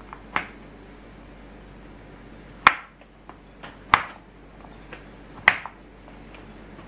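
Plastic bench scraper chopping roasted sweet chestnuts, its edge knocking down on a wooden board. The chops are irregular and sharp, with the three loudest coming about a second and a half apart in the second half and fainter taps in between.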